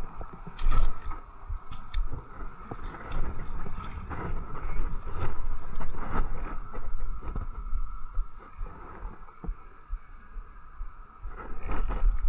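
Wind rumbling on the microphone over water sounds along a rocky shore, with scattered sharp clicks and knocks.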